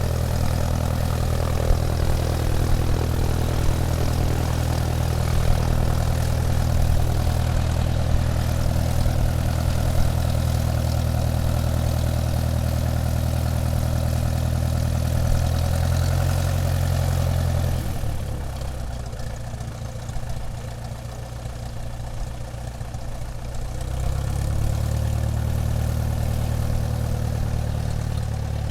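Airplane taxiing, its engine running at low power with a steady low drone. About two-thirds of the way through, the engine note drops and quietens for about six seconds, then comes back up.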